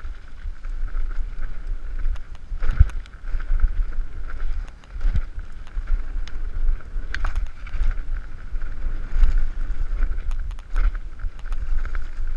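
Wind rumbling and buffeting on the microphone of a camera on a mountain bike riding fast down a dirt trail, with the bike rattling and knocking over the bumps and a steady high buzz running underneath.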